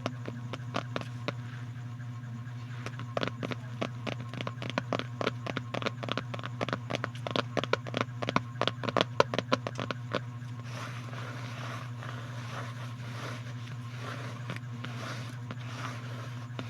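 ASMR trigger sounds: rapid, irregular clicking and scratching that grows denser and louder, then gives way about ten seconds in to a softer, steady crackly rustle, all over a constant low electrical hum.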